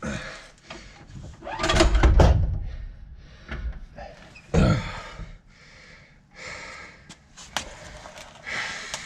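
Heavy metal clunks and scrapes as a transmission is shifted and pushed toward the back of the engine while being lined up. The longest, heaviest clunk comes about two seconds in, with a sharp knock near the middle.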